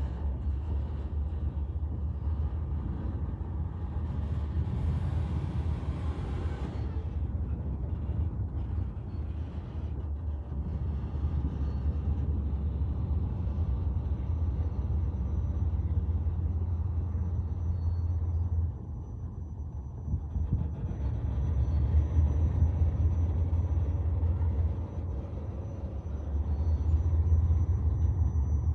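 Freight train of covered hopper cars rolling slowly past, with its diesel locomotive working at the head end: a steady low rumble. The rumble drops briefly about two-thirds of the way through and again shortly before the end.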